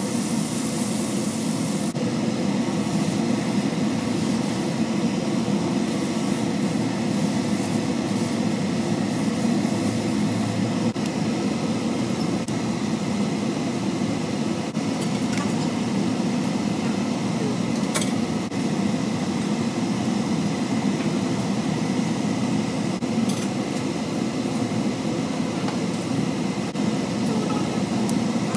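Steady whir of a kitchen exhaust fan running over the stovetop, with a couple of faint clicks past the middle.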